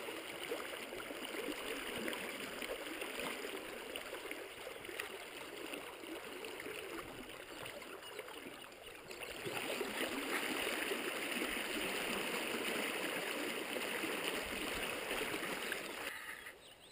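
Shallow creek water rushing and gurgling over a riffle, a steady hiss that swells louder for several seconds past the middle and drops off sharply near the end.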